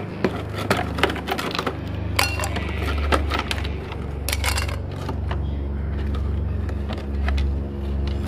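Hands rummaging through a freezer compartment: frozen packages and containers knocking and clinking against each other and the shelves, with irregular short knocks and clicks over a steady low hum.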